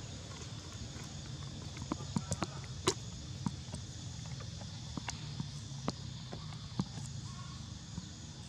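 Outdoor ambience: a steady low hum under a faint, even high drone, broken by scattered sharp clicks and light taps, most of them between about two and seven seconds in.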